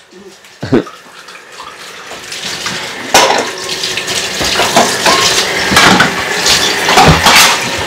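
Kitchen tap running into the sink, with dishes and utensils clinking now and then; the water grows louder from about a second in.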